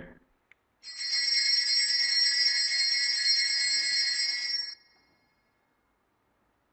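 Altar bells rung at the elevation of the chalice: a continuous bright ring of small bells starting about a second in, lasting about four seconds, then stopped short.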